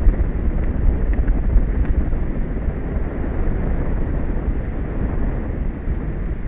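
Wind buffeting an outdoor microphone: a continuous, uneven low rumble with a rushing hiss above it.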